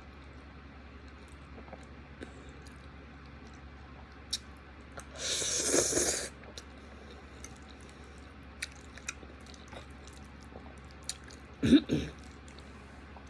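Someone eating creamy chicken Alfredo: quiet chewing with scattered small mouth clicks. About five seconds in comes a loud breathy rush lasting about a second, and near the end a short low vocal sound.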